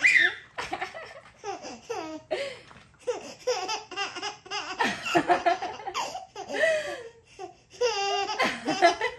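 Infant of about six months laughing with delight: a long run of short giggles and belly laughs, with a fast stuttering laugh near the end.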